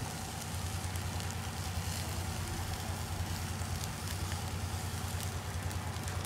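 Meat sizzling on a wire grill over hot charcoal, a steady hiss with scattered small crackles.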